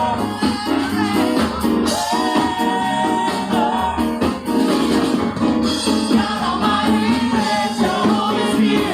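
Live gospel praise music: a praise team singing held notes over a full band with percussion.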